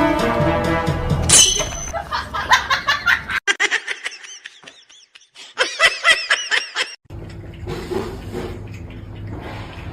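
Laughter in quick pulses, several a second, across two short cut-together bursts after background music stops about a second in; a low steady hum follows for the last few seconds.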